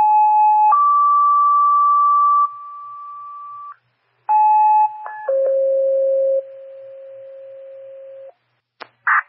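Two-tone sequential pager tones sent over a fire dispatch radio channel to alert responders' pagers. A short tone steps up to a long higher one, there is a brief gap, then a short tone steps down to a long lower one.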